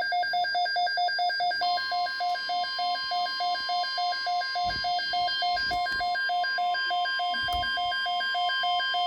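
Midland WR-300 weather radio sounding its alert for a severe thunderstorm watch: a rapid pulsing beep, about four or five beeps a second. About two seconds in, a steady tone, the NOAA Weather Radio warning alarm tone, joins it.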